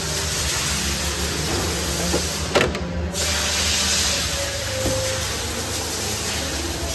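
Sped-up workshop noise: a steady hiss, with one sharp knock about two and a half seconds in.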